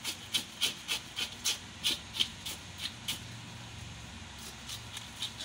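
Knife blade scraping scales off a surgeonfish, in quick repeated strokes of about three or four a second, with a short lull past the middle.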